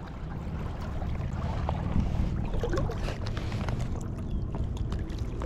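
Low rumble of wind on the microphone over moving river water, with a few faint clicks and knocks.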